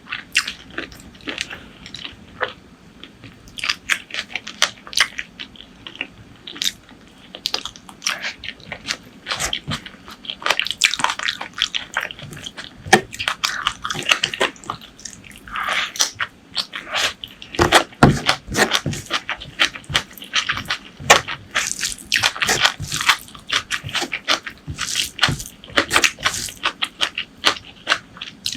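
Close-miked eating sounds: wet chewing and biting of food, with many irregular sharp clicks and smacks.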